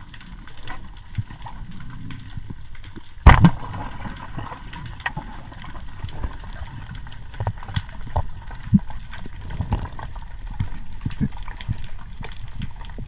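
Underwater sound during a spearfishing dive: a low rush of water with scattered small clicks, and one loud, sharp crack about three seconds in.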